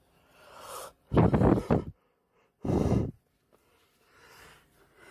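Foil peel-off seal of a Pringles can being torn back from the rim: two loud ripping pulls, the first about a second in and nearly a second long, the second shorter, about two and a half seconds in, after a softer rustle.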